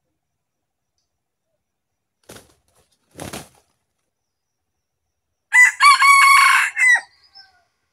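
Red junglefowl rooster crowing once, a loud call about a second and a half long broken into several segments, starting a little after five seconds in. Before it, two short rustling scuffles of the fighting roosters, about two and three seconds in.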